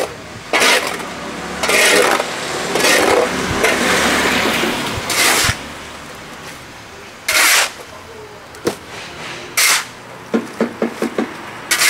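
A metal shovel scraping across the wet pavement and scooping up drain sludge, in a series of short scrapes with one longer scrape about four seconds in. A quick run of light knocks comes near the end.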